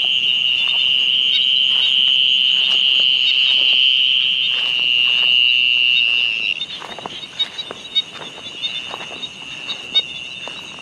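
Night chorus of calling creatures in a rice paddy: a loud, continuous high-pitched trill that drops sharply in loudness about six and a half seconds in and carries on fainter. Soft footsteps brushing through grass are heard under it.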